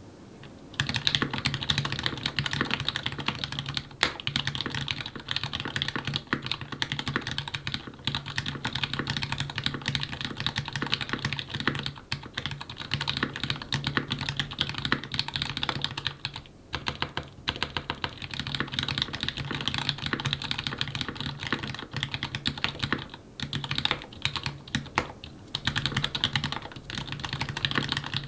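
Continuous typing on a mechanical keyboard with lubed Gateron Ink linear switches on a brass plate, under GMK keycaps: a dense, irregular patter of keystrokes that starts about a second in, with brief pauses about two-thirds of the way through.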